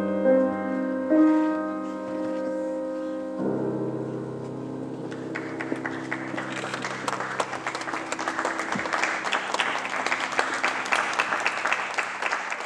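Held musical notes ringing out, changing to lower notes a few seconds in. Audience applause starts about five seconds in and grows louder, mixed with the fading music.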